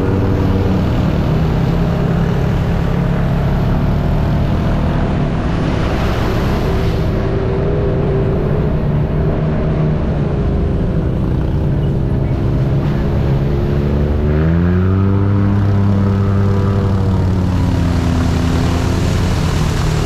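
Side-by-side UTV engine running under way on a dirt trail, its pitch drifting up and down with the throttle and climbing steeply about fourteen seconds in as it accelerates.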